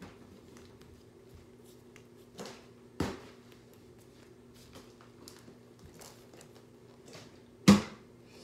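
Thrown plastic bottle knocking and thudding: a light knock then a sharper one about three seconds in, and a much louder thud near the end. A ceiling fan hums steadily under it.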